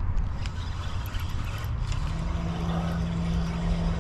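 Low, irregular wind rumble on the microphone. About halfway through, a steady low motor hum, such as a passing boat or vehicle engine, comes in and holds.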